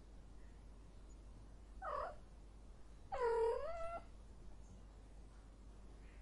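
Female cat in heat yowling in drawn-out mating calls. A short call comes about two seconds in, then a louder, longer one that dips and rises in pitch.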